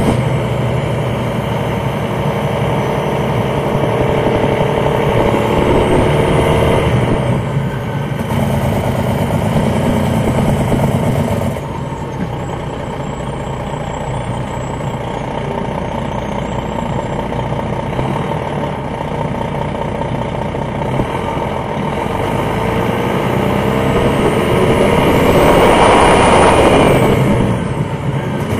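The Detroit Diesel Series 60 engine of a 2001 MCI D4000 coach heard from inside the bus, running on the road and changing note as it goes. The level drops about a third of the way in, builds again, and peaks in a loud rushing noise near the end.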